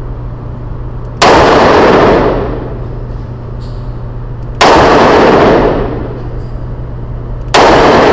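Three shots from a Ruger SP101 .357 Magnum revolver, about three seconds apart. Each is a sharp, very loud bang that rings on and dies away over about a second in the indoor range.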